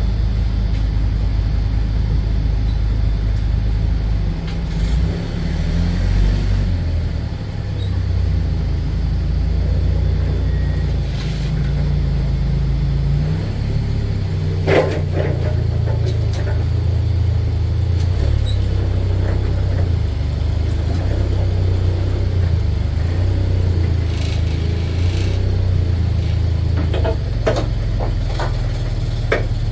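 A large truck's engine running at low revs, its pitch shifting up and down as it is throttled and eased off while manoeuvring. A few sharp knocks or clicks come about halfway through and near the end.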